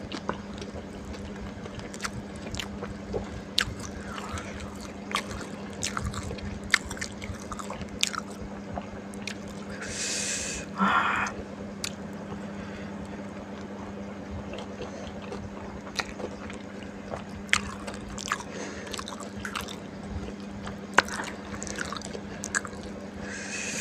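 Close-up eating sounds of spicy fried flat rice noodles with fried wontons: chewing with many sharp little clicks and crunches. There is a short breathy rush about ten seconds in and another near the end, over a steady low hum.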